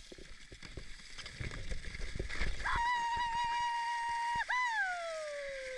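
A person's high voice holds one steady note for nearly two seconds, breaks briefly, then slides down in pitch. Under it are light clicks and scrapes from skates on ice.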